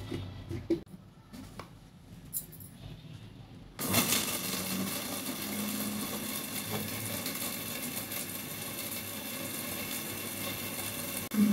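Westpoint electric blender's dry-grinder jar being set in place with a few light clicks. About four seconds in, its motor starts suddenly and runs at high speed with a steady whine, grinding whole spices (cumin, coriander seed, fennel, cardamom, cloves, black pepper, cinnamon) to powder. It cuts off near the end.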